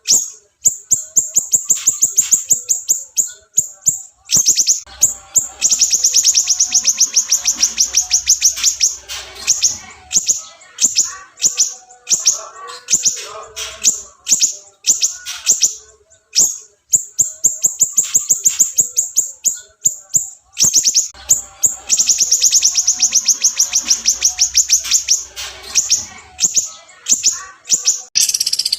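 Caged songbird singing a loud, varied song: long runs of very fast, high trills lasting a few seconds each, broken up by short chirps and clicking notes.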